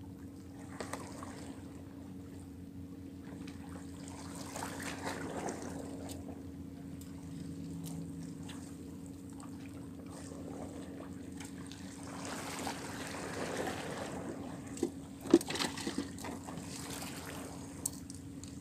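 Water sloshing and trickling against shore rocks at the water's edge, over a faint steady hum, with a few sharp clicks a little past the three-quarter mark.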